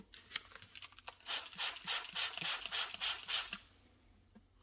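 Squeeze bottle squirting water onto a golf iron head in a quick run of short hissing spurts, about three to four a second, wetting the cleaned metal for a water break test of whether it is clean enough to plate.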